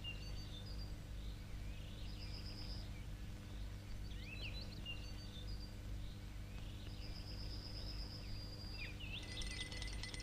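Faint birdsong: scattered high chirps, with a short high trill about two seconds in and a longer one about seven seconds in, over a low steady hum.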